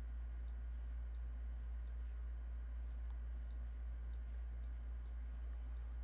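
A few faint computer mouse clicks over a steady low electrical hum.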